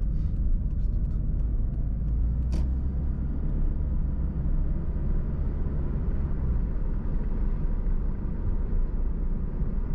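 Steady low rumble of a car's engine and tyres heard from inside the cabin while driving, with a single sharp click about two and a half seconds in.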